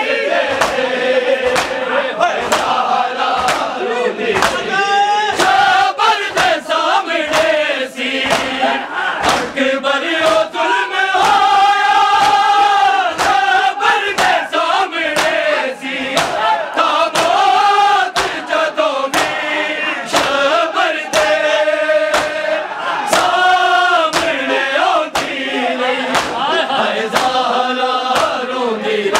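Men reciting a Punjabi noha (Shia lament) in chorus, with a steady beat of hand strikes on the chest (matam) keeping time under the singing.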